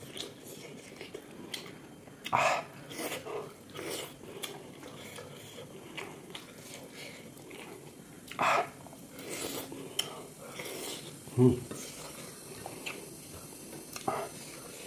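Mukbang eating sounds from someone eating pork: chewing, with scattered clinks and scrapes of utensils against a dish. Short louder noises come about two and a half and eight and a half seconds in.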